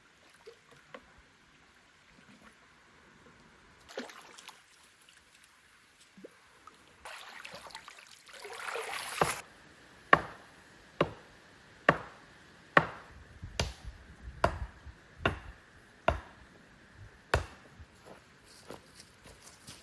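A rustling scrape for about two seconds, then a steady run of about nine sharp chopping strikes on wood, a little under a second apart.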